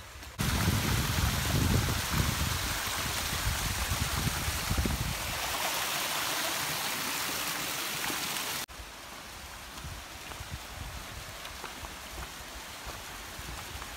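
Rushing water of a mountain stream, a loud steady hiss with a deep rumble underneath for the first few seconds. It cuts off suddenly about two-thirds of the way in, giving way to a quieter steady outdoor hiss.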